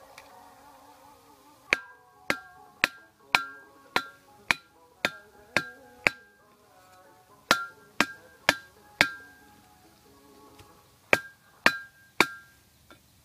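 Steel cleaver chopping into a whole jackfruit: sharp chops with a short metallic ring, about two a second, in three runs with short pauses between.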